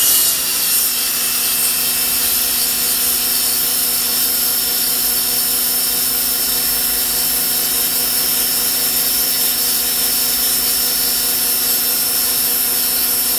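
1750 PSI electric pressure washer running steadily: a constant motor-and-pump hum with a high whine over the hiss of its water jet spraying drum sander sandpaper.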